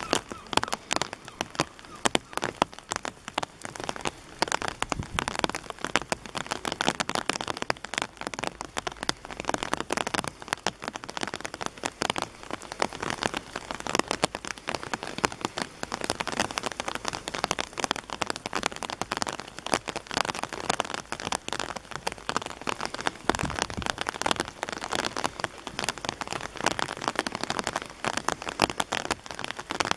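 Rain falling: a dense, irregular run of sharp drop hits over a steady hiss, with no letup.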